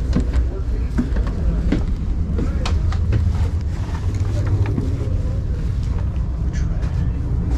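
Steady low rumble inside a passenger train car, with scattered knocks, clicks and rustling from someone climbing the car's stairs and moving through the vestibule.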